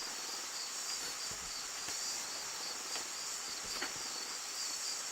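Crickets chirping steadily in the background, a high, evenly pulsing trill, with a few faint clicks over it.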